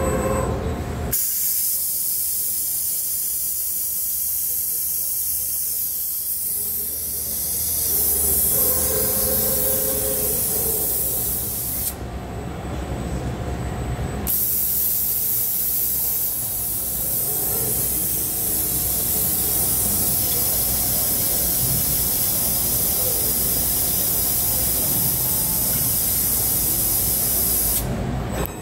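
Steady compressed-air hiss from the pneumatics of a robotic press brake cell, over a low machine hum. The hiss stops for about two seconds around twelve seconds in, and again near the end.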